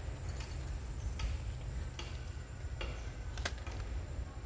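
A few short, light clicks and crackles, the sharpest about three and a half seconds in, over a steady low rumble.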